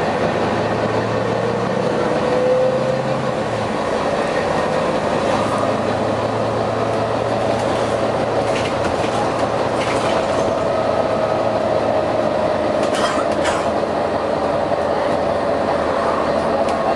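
Volvo B9TL double-decker bus under way: steady engine and running noise with a low hum and a whine that slowly slides up and down in pitch, and a couple of short clicks about thirteen seconds in.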